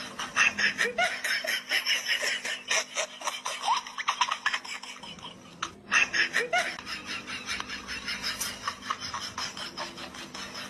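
Laughter in quick, repeated bursts, breaking off briefly about halfway through and then resuming.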